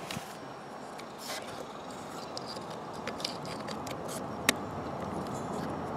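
Light scrapes and small clicks of hands handling the truck's turn-signal light parts, with one sharp click about four and a half seconds in, over a steady background hiss.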